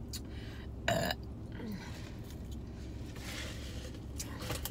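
A short burp about a second in.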